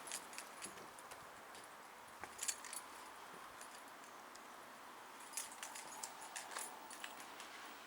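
ThyssenKrupp machine-room-less elevator's doors closing slowly: faint metallic clicks and rattles, a short cluster about two seconds in and a longer run around five to seven seconds.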